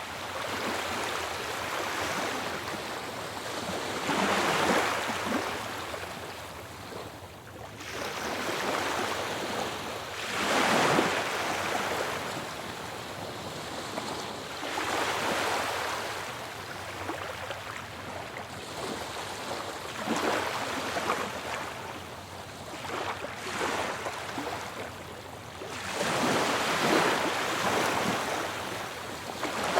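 Ocean waves breaking on a shore, a continuous rushing wash of surf that swells louder with each breaking wave every few seconds and then ebbs.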